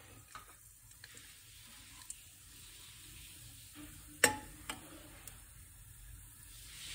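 Mustard seeds sizzling in hot ghee in an aluminium pressure cooker at the start of a tempering, a faint hiss that grows a little louder towards the end. A few sharp clicks break through it, the loudest about four seconds in.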